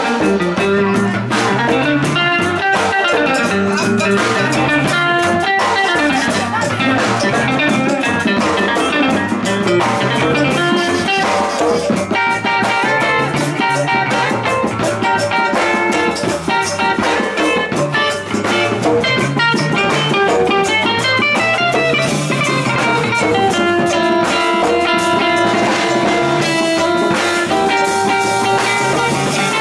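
Live band jam: electric guitars playing melodic lines over hand drumming on djembes and drums, continuously and at a steady level.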